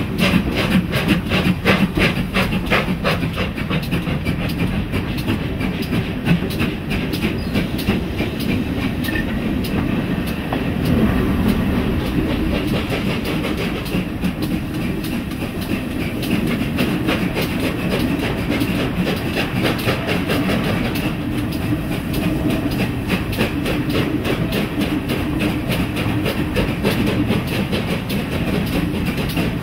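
Steam-hauled train on the move, heard from a carriage window right behind the locomotive: a quick, steady run of beats over a continuous rumble, the beats most pronounced in roughly the first ten seconds.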